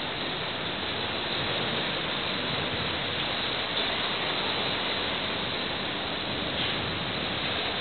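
Steady rushing noise of wind and sea along the open side deck of a freighter under way, with no distinct events in it.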